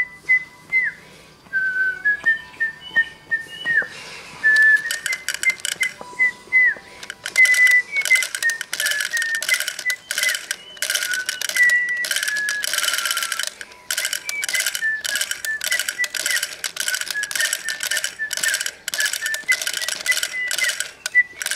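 Battery-operated Doraemon drumming toy playing a simple, tinny electronic tune of single whistle-like notes, with a fast clatter of clicks from its plastic arms tapping the drum. The clicking gets louder and denser about a third of the way in.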